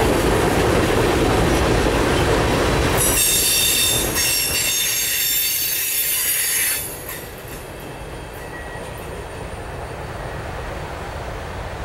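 Freight train tank cars rolling past on steel rails with a heavy rumble. About three seconds in, a high-pitched wheel squeal starts as the last cars go by. It stops suddenly a few seconds later, leaving a fainter rumble as the train moves away.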